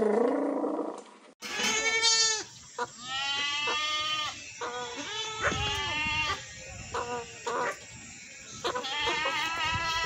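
A goat bleating several times, each bleat a wavering call lasting about a second, the last starting near the end. The bleats follow the tail of a loud macaw call that falls in pitch and stops about a second in.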